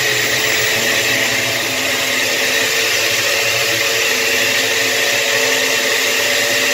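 Countertop blender motor running at a steady high speed, puréeing spinach leaves with a little water in its glass jar.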